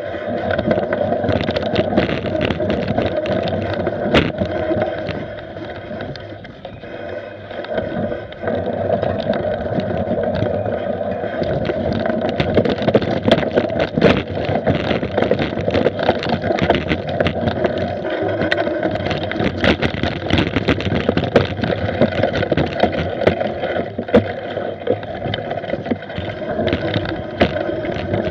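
Mountain bike ridden fast downhill over a bumpy dirt trail, heard on board: tyres rumbling on dirt and the bike rattling and clattering over roots and bumps, with many sharp knocks. It eases off briefly for a couple of seconds about six seconds in, then clatters on steadily.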